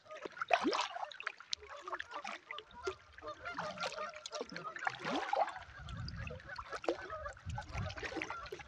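A flock of geese honking repeatedly, many short calls overlapping, the geese disturbed by the canoe paddling near them.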